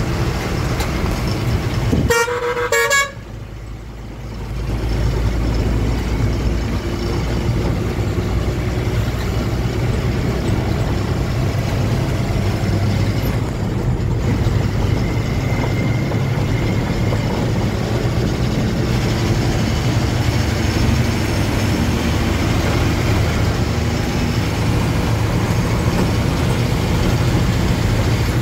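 Truck engine and road noise heard inside the cab while driving, steady throughout. A horn sounds for about a second, two seconds in, and the engine noise then dips briefly before building back up.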